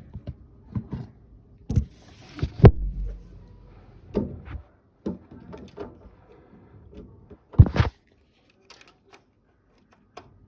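A series of sharp plastic clicks and knocks, with a brief scrape, as a RAM stick is handled and pushed at a motherboard's memory slot; the stick is resisting going in. The loudest knocks come about a third of the way in and again near the end.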